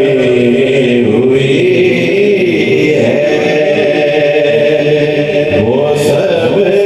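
A man chanting a naat into a handheld microphone, unaccompanied, holding long wavering notes with slow glides up and down between them.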